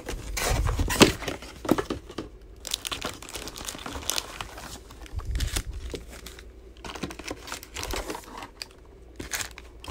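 Cardboard trading-card box being torn open and its wrapped card packs pulled out, crinkling and rustling irregularly, with a sharp knock about a second in.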